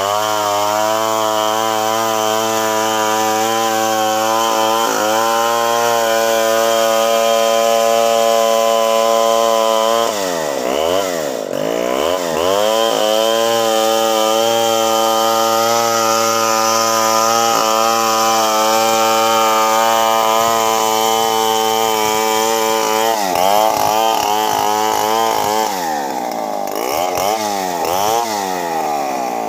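Long-bar two-stroke chainsaw running at full throttle, ripping lengthwise down a big antipolo log to mill planks. Its engine note holds steady for long stretches and dips and climbs back again around ten seconds in and several times near the end.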